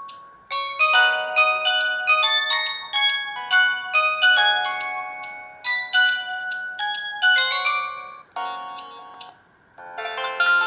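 Samsung GT-E2152 mobile phone ringtone: a synthesized melody of short, bell-like notes. It breaks off briefly near the end, then a tune starts again.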